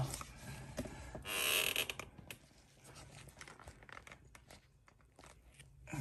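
Handling noise: a short rustle and tear-like crinkle about a second in, then scattered small crinkles and clicks that die away.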